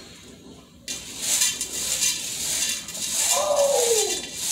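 Dried black beans rustling and rattling against the sides of a stainless steel pot as a hand stirs through them, sorting out small stones. It starts about a second in, and a brief falling tone of unknown source sounds near the end.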